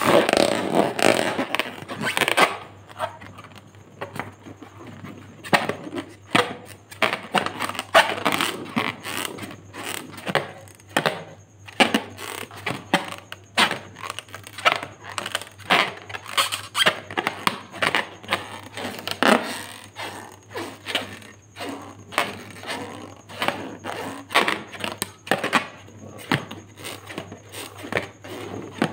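Fingers rubbing and squeezing a filled latex balloon: irregular squeaks and rubbing scrapes of skin on taut rubber, a dense run of them in the first couple of seconds, then scattered ones.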